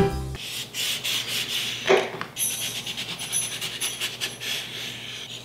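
Kitchen knife cutting the peel off a pink grapefruit against a wooden board: a rasping, scraping sound of small strokes, with one brief louder cut about two seconds in.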